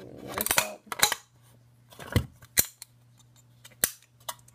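A thin aluminium soda can being cut and handled: a crinkle of thin metal at the start, then a handful of sharp separate snips and clicks.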